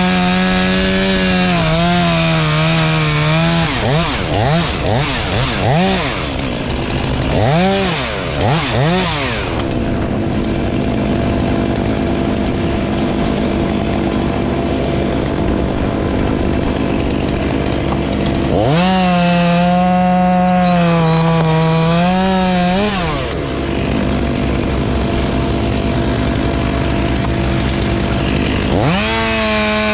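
Chainsaw running and revving: held at full throttle for the first few seconds, blipped up and down several times, then running lower before two more long full-throttle runs, one about two-thirds of the way through and one near the end.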